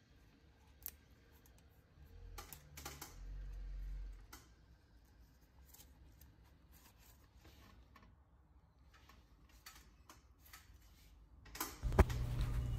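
Faint scuffing and a few light clicks as a cloth is rubbed over a brake caliper's piston and mating surfaces to clean them. A soft low rumble of handling runs from about two to four and a half seconds in.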